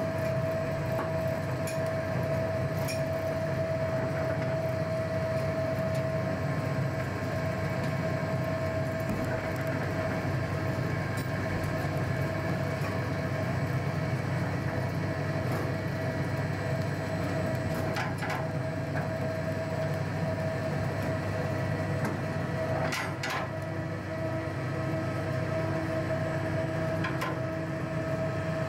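Soap-factory machinery running steadily: a constant hum with one held whining tone, and a few sharp clicks about two-thirds of the way in.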